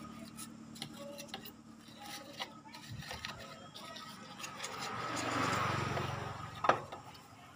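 Bristles of a small paintbrush scrubbing dust off an electronic circuit board, a soft scratchy rubbing with small clicks from handling the board, louder about five seconds in, and a sharp click near the end.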